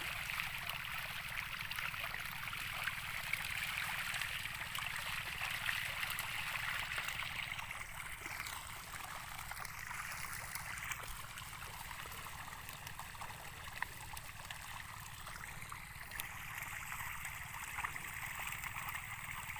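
A dense school of patin (pangasius catfish) feeding at the surface of a pond, a steady patter and churn of many small splashes as they snatch thrown feed pellets.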